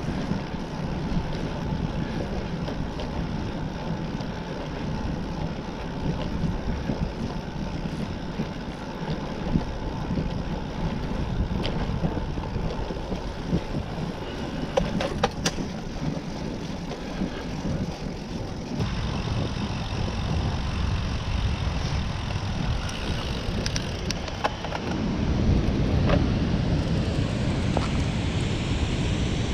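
Wind rushing over the microphone and tyre noise from a road bicycle rolling along a paved path. Near the end it changes to a louder, steady rush of falling water from a waterfall, mixed with wind.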